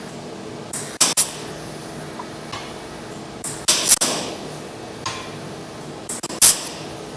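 Sharp metallic clanks in pairs, about every two and a half seconds, over a steady low hum.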